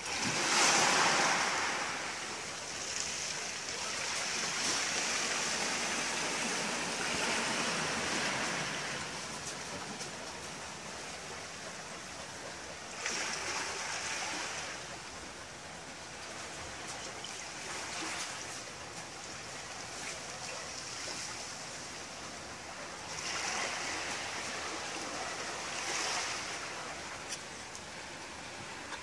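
Small sea waves washing in over a pebble beach, rising and falling in several surges.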